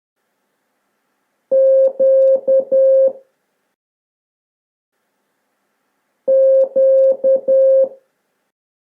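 Morse code sidetone, a steady beep near 550 Hz, keying the letter Q (dash dash dot dash) twice, the two letters about five seconds apart.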